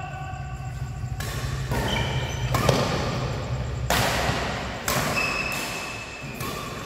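Badminton rackets hitting a shuttlecock in a fast doubles rally: four sharp hits about a second apart, with short shoe squeaks on the court floor between them.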